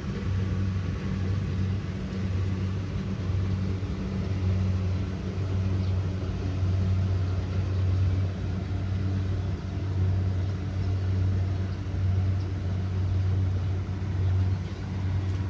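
Kubota DC70 Pro combine harvester's diesel engine running steadily at working speed, a constant low drone with mechanical noise above it.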